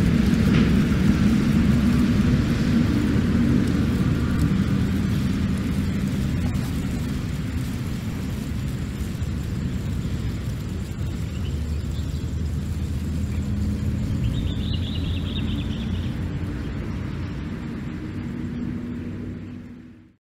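Outdoor ambience in an open grass field: a steady low rumble with a faint hum, and short high chirping about a second and a half long, heard again in the second half. It fades out near the end.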